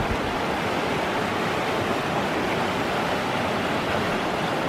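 River water rushing steadily, an even wash of noise.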